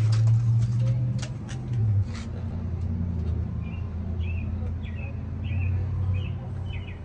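Low steady rumble of a nearby vehicle engine, loudest in the first two seconds. Light clicks of plastic toy kitchen utensils being handled early on, and a string of short bird chirps in the second half.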